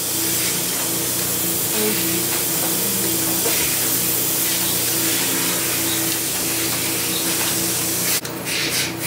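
Milking system running in a dairy barn: a steady, loud hiss of air over a low hum, which breaks off sharply about 8 seconds in.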